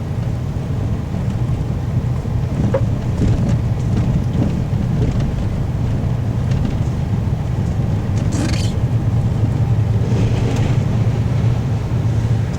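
Strong wind rumbling and buffeting against the microphone, with a brief higher rushing gust about eight and a half seconds in.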